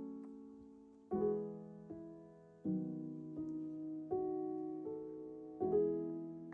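Background piano music: soft, slow chords struck about every one and a half seconds, each left to ring and fade.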